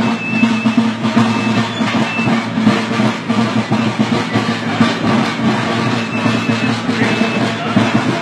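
Band music with drums and drum rolls, over a steady low held note.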